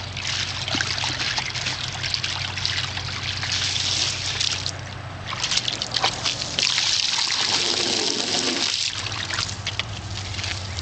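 Water from a garden hose spraying and splashing into a plastic kiddie pool, with a dog splashing through the water; the hiss grows louder about two-thirds of the way in.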